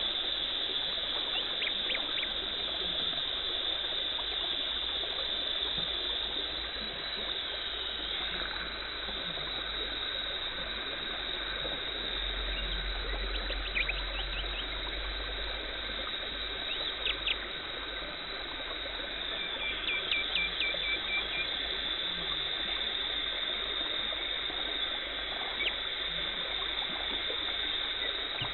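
Dental suction and water spray hissing steadily during teeth cleaning, with a high steady whine and a few short runs of light clicks.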